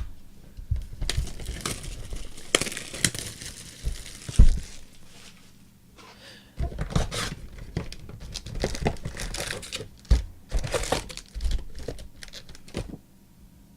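Trading card pack wrappers crinkling and tearing as packs are ripped open, in two stretches of crackling with a short lull near the middle.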